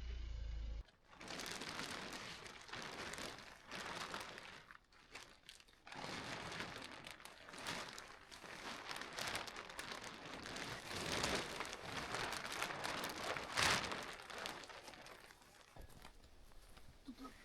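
Continuous crinkling and crunching rustle, swelling and fading unevenly, starting abruptly about a second in.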